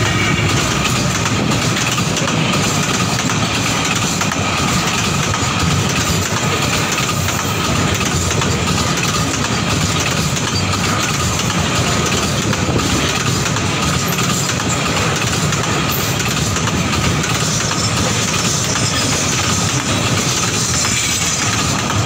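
Container freight train's flatcars rolling past close by: a loud, steady rumble of steel wheels on the rails with a clickety-clack over the rail joints, and a thin steady whine above it.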